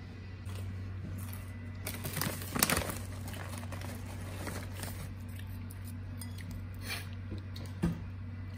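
Crackers being handled and dipped into dip in a ceramic bowl: a cluster of crunches and crinkles a couple of seconds in, the loudest part, then a few more near the end, over a steady low hum.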